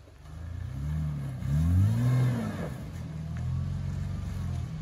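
Toyota LandCruiser 4WD engine revving in surges as it crawls up a rutted, washed-out track, rising and falling in pitch with the loudest rev about two seconds in.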